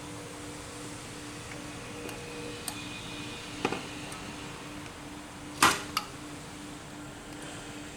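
A few short clicks and knocks of parts or tools being handled during engine work, the loudest about five and a half seconds in and another just after, over a steady low hum.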